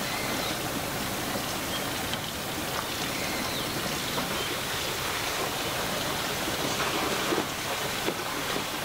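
Spring water running steadily from a pipe spout and splashing below, with a few light knocks near the end.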